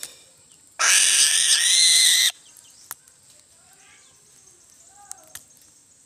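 An eagle gives one loud, harsh scream about a second and a half long, starting just under a second in. Faint chirps of small birds come and go around it.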